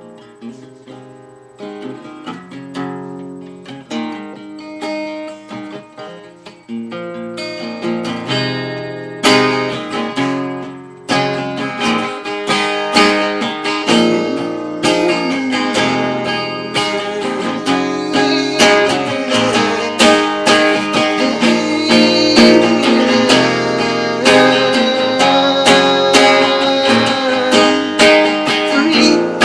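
Solo acoustic guitar playing a song's intro: quiet picked notes at first, then fuller strummed chords from about seven seconds in, growing louder.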